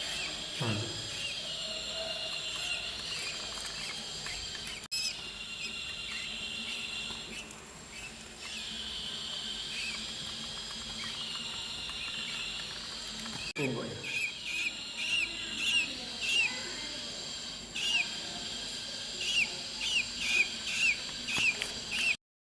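Songbirds calling: high twittering and trilling, then from about fourteen seconds a run of short, sharp chirps about twice a second. The sound drops out briefly twice, as if spliced.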